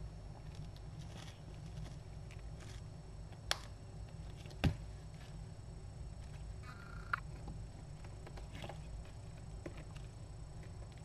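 Steady low room hum with a few sharp clicks, the loudest about three and a half and four and a half seconds in, and a brief high squeak about seven seconds in.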